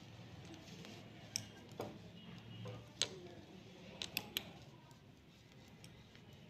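Knitting needles clicking against each other as stitches are worked: about six sharp, scattered ticks, the loudest about three seconds in, and a quick run of three just after four seconds.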